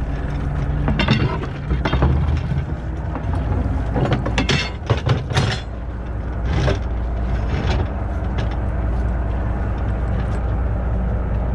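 A boat engine runs steadily while metal gear knocks and clatters several times against the boat's metal side rail, most of it in the first seven seconds, as a grapple hook and buoy line are hauled aboard.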